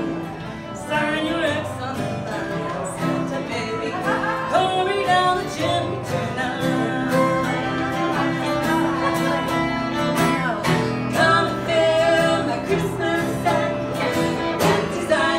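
Two fiddles and an acoustic guitar playing a bluegrass-style Christmas song, with women singing.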